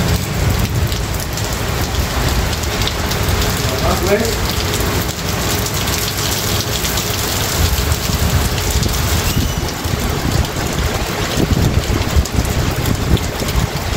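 Heavy rain pouring steadily onto a paved yard and the surfaces around it.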